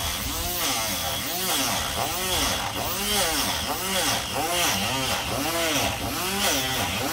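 Small corded rotary tool grinding into a Bondo Glass (fiberglass-filled body filler) slat. Its high motor whine rises and falls in pitch over and over, about once or twice a second, with each pass of the bit, over the gritty hiss of the cut.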